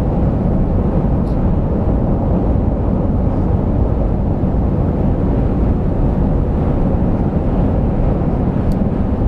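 Steady low rumble of road and engine noise inside the cab of a Dodge Ram 3500 pickup with a Cummins turbo-diesel, driving along.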